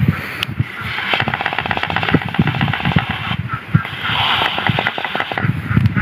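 Green pigeon fluttering and shaking its wings on a cage rim while being misted for a bath, a long run of rapid soft wing flaps. A short hiss of water spray comes about four seconds in.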